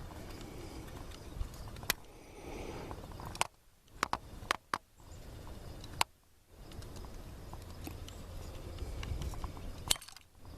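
Scattered sharp clicks and taps over a low rumble: the metal linkage rods and plastic retaining clips of a truck door handle being handled and worked into place inside the door.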